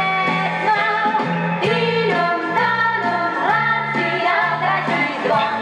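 A 1971 Czech pop song with dance-orchestra accompaniment, in a passage without lyrics: a bass line of held notes under a sustained melody that sounds sung, typical of a wordless female backing group.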